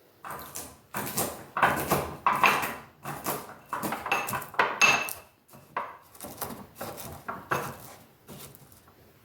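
Dishes and cutlery clinking and clattering as they are handled: a busy run of knocks and clinks, a few of them ringing briefly.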